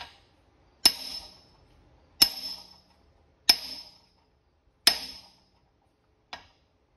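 Hammer blows through a piece of aluminum, pecking the Ford Model A's pinion bearing assembly down into the differential housing: about six sharp strikes a little over a second apart, each ringing briefly, the last one lighter as the assembly comes home.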